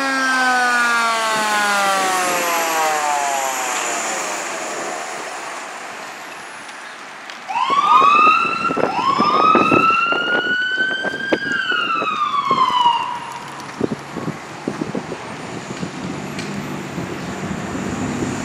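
Fire engine's siren on an emergency run. It slides slowly down in pitch over the first few seconds, then starts up again about seven seconds in, sweeping up twice to a high held wail before falling away about thirteen seconds in, over vehicle noise.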